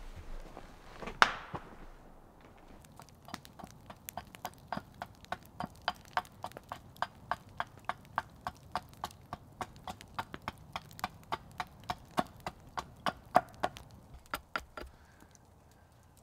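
Small carving axe hewing a wooden spoon blank on a stump chopping block: a steady run of sharp chopping strikes, about two to three a second, from a few seconds in until near the end. One louder single knock comes about a second in.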